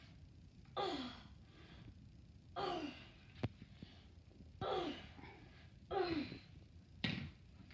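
A young girl's short effortful vocal exhalations as she swings a kettlebell: five brief sighing grunts, each falling in pitch, one every one to two seconds. A single sharp click comes about three and a half seconds in.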